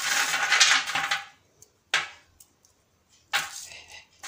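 Crisp freshly baked savoury crackers clattering and baking paper crinkling as hands gather them on a baking tray: a rustling scrape for about a second, a sharp tap about two seconds in, then another short rustle near the end.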